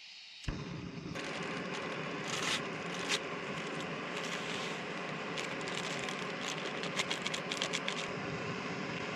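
Backpacking gas stove lighting with a soft pop about half a second in, then burning with a steady hiss. Sharp clicks fall over it here and there, most densely near the end.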